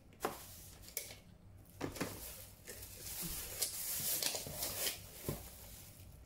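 Handling noises at a dining table: a few light clicks and knocks, with a stretch of soft rustling in the middle.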